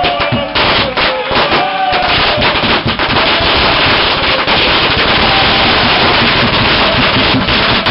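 A long string of firecrackers going off in rapid, continuous crackling bangs, starting about two seconds in. A crowd singing can be heard at the start.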